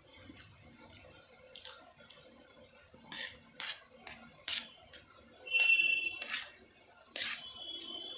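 Close-up eating sounds of spicy instant noodles: an irregular string of sharp cutlery clicks against the dish, mixed with short hissy slurps and chews, a couple of them with a brief whistle.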